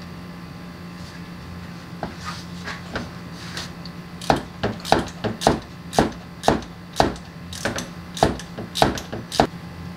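Ratchet clicking, about three sharp clicks a second, as a 32 mm socket unscrews the SST transmission's oil filter housing, over a steady low hum.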